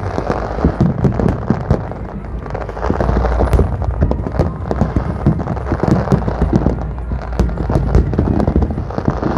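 Fireworks display: a dense, continuous run of bangs and crackles from aerial shells going off one after another.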